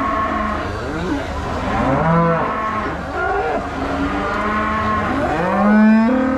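Aberdeen Angus cattle mooing, several calls overlapping. One long call comes about two seconds in, and the loudest rises in pitch near the end.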